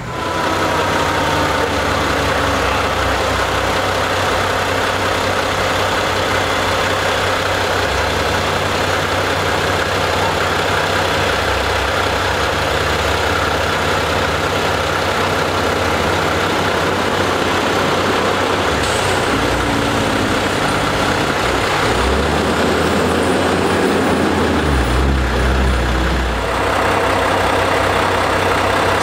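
Fire apparatus engines idling steadily, with the low engine tone shifting a little about two-thirds of the way through.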